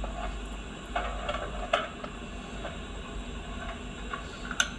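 A few scattered light clicks and knocks of a cordless drill and its screwdriver bits being handled while a broken bit is swapped for a larger one, over a steady low hum.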